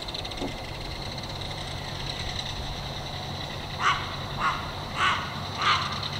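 A bird gives four harsh, caw-like calls in quick succession, about two a second, starting about two-thirds of the way in, over a steady high-pitched buzzing background.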